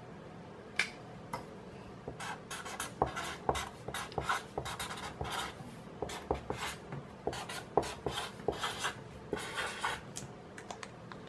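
Marker pen writing on a sheet of paper on a desk: a run of short scratchy strokes as letters are drawn, one about a second in, then many close together until near the end.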